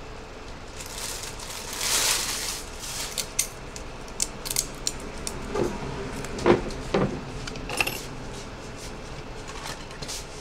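Light clinks and taps of small metal phone parts and tools being handled on a workbench, in a scattered run of sharp clicks after a brief brushing noise early on.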